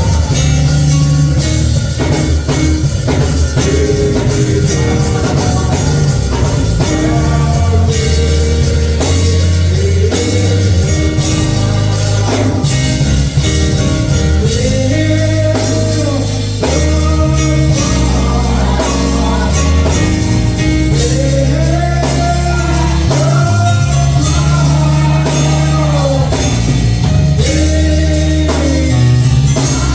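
Live gospel music from a church band, with bass, drums and guitar, and singing.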